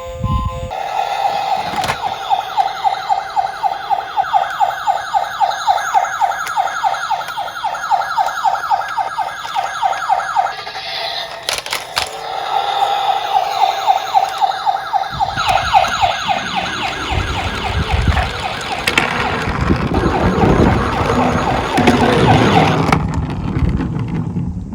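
Electronic emergency-vehicle siren warbling rapidly at a high pitch. It breaks off briefly near the middle, with a couple of sharp clicks, then resumes. During the second stretch, the rolling rattle of die-cast toy minicars running down a slope joins it.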